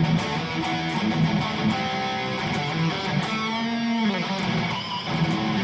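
Harley Benton SC-500 electric guitar played through the Overloud TH3 amp simulator: strummed chords and held notes, with one note bent upward a little past halfway.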